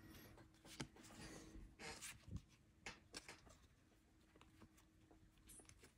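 Faint rustling and soft scattered clicks of baseball trading cards being slid and flipped through by hand.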